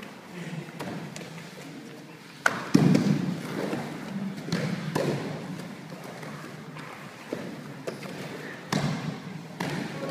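Irregular dull thuds of wrestlers' bodies and feet hitting the mat, the sharpest about two and a half seconds in.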